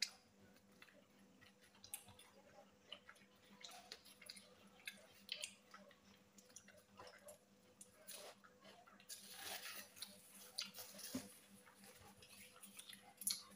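Faint chewing and biting of egg rolls by two people eating fast, heard as soft irregular smacks and small crunches over a faint steady hum.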